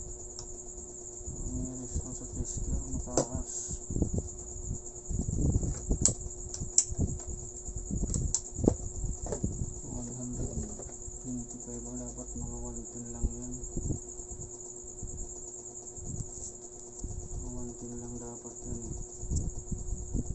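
A steady high-pitched buzzing chirr, with scattered clicks and knocks as a circuit board and soldering iron are handled on a workbench, the loudest between about five and nine seconds in.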